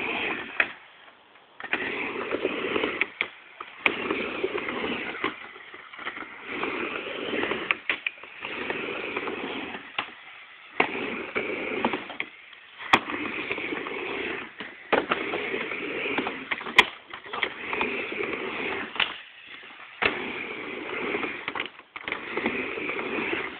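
Skateboard wheels rolling back and forth across a mini ramp, a swell of rolling noise on each pass about every two seconds. Sharp clacks of the board hitting the ramp are heard between passes.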